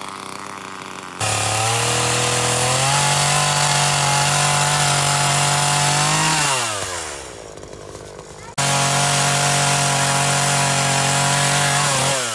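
Craftsman S180 42 cc two-stroke chainsaw revving up to full throttle and held there while cutting through a small log, then dropping back toward idle. About two-thirds of the way through it comes in again abruptly at full throttle, and it winds down near the end.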